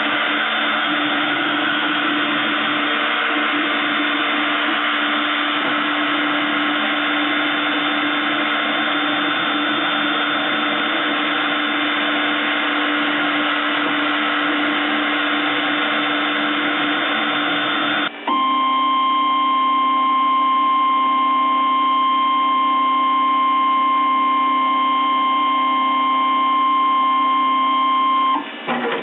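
Small CNC milling machine's spindle running steadily while a 1 mm ballnose cutter finish-mills a white PVC pipe, a continuous noisy whine with a few fixed tones. About two-thirds through it changes abruptly to a steadier whine with one clear high tone, which stops just before the end.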